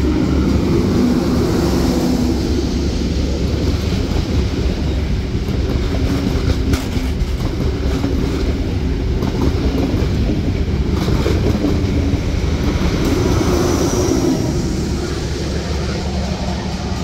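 NSW TrainLink XPT passenger train passing at speed: the leading diesel power car's engine running hard, then the carriages rolling by with a steady rail rumble and a few sharp wheel clicks. The sound eases off near the end.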